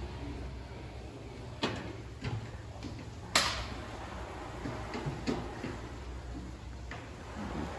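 Scattered sharp knocks and clacks of workshop activity, the loudest about three and a half seconds in, over a low hum that drops away about a second in.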